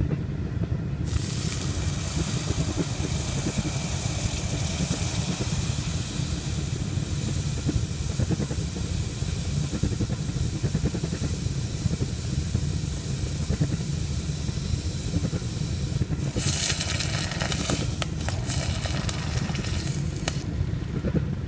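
Hot steel knife blade quenched in water, hissing and sizzling as the water boils against it; the hiss starts about a second in, swells into a louder burst of sizzling near the end, then cuts off. A steady low rumble runs underneath.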